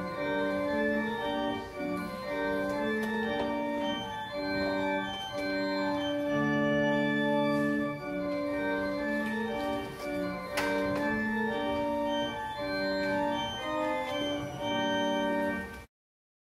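Church organ playing a piece of held chords with moving lines in the lower and middle voices, cutting off abruptly near the end.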